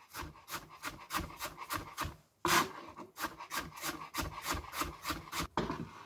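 Chef's knife cutting peeled apple into thin matchstick strips on a plastic cutting board: quick, steady strokes, several a second, each a crisp crunch and tap on the board. One stroke about two and a half seconds in is louder, and the cutting stops near the end.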